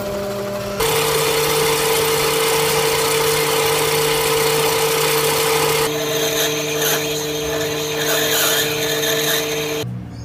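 Mini lathe running with a steady motor whine while a tool cuts the spinning brass workpiece. The sound gets louder about a second in, changes about six seconds in, and cuts off abruptly near the end.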